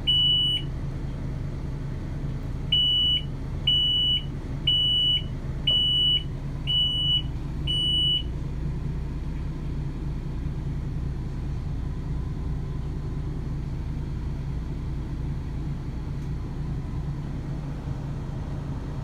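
Boat helm warning alarm beeping at a high steady pitch: one beep at the start, then six more in a row about one a second, stopping about eight seconds in. Under it the boat's engines hum steadily at idle. The alarm goes with a false 16,450 rpm reading on the SmartCraft display, electronics faulting after a lightning strike.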